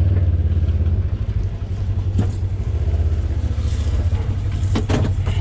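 A vehicle engine idling: a loud, steady low rumble with a quick fine pulse, and a couple of light clicks over it.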